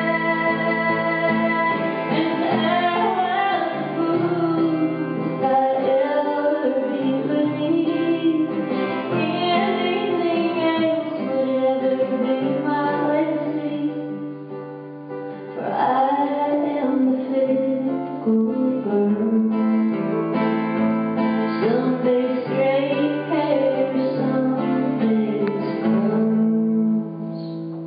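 A woman singing a song live, accompanied by a plucked string instrument. There is a short lull about halfway through, and the music falls away just before the end.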